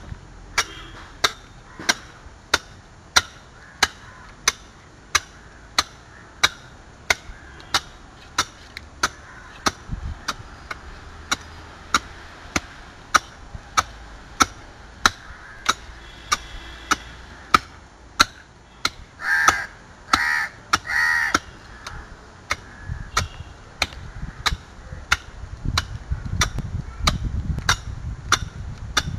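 A hand-held stone-dressing axe chopping a laterite block in a steady rhythm of sharp strikes, about one and a half a second. About two-thirds of the way in, a crow caws three times.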